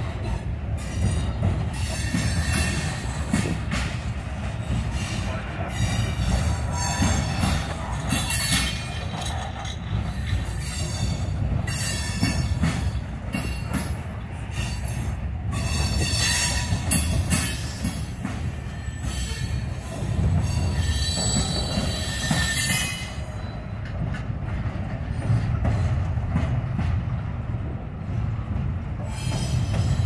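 Freight train cars rolling past: a steady low rumble of wheels on rail, with high-pitched wheel squeal and metallic hiss coming and going every few seconds.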